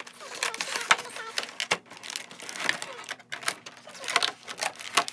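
Clear plastic blister tray and cardboard action-figure box rustling and crackling as the tray is slid out of the box, in a quick run of sharp clicks and crinkles.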